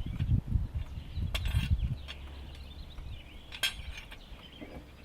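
Light metal clinks of a car jack and its handle being worked, over uneven low rumbling in the first two seconds.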